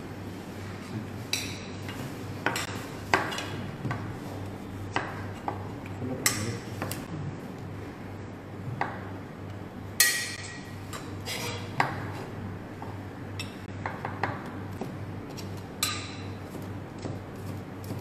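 Kitchen dishes and utensils being handled: scattered clinks and knocks of tableware set down and moved, one ringing clink about ten seconds in being the loudest, over a low steady hum.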